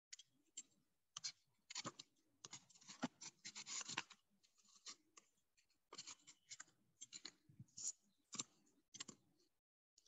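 Faint, irregular scratching and clicking of chart paper being handled: a glue stick rubbed over the paper and the paper cut-out pressed and turned by hand, busiest in the first few seconds.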